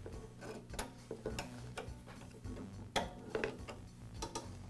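Scattered light clicks and taps of hard plastic and metal as a Briggs & Stratton primer base (the plastic air filter base) is handled and fitted against the engine's carburetor. The sharpest click comes about three seconds in.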